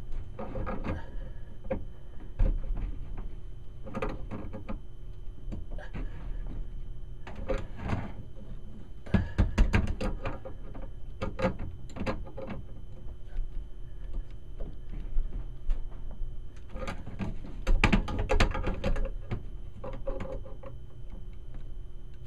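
Channel-lock pliers clicking and scraping on brass supply-line fittings as a water hammer arrestor is tightened onto a washing-machine valve. The sound comes in irregular bursts of metal clicks and clunks every few seconds, the busiest about halfway through and again near the end.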